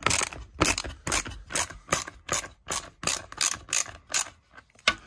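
Ratchet with a Torx bit clicking steadily, about three clicks a second, as it backs out the small screw holding the handguard on a BMW F850 GS Adventure's handlebar.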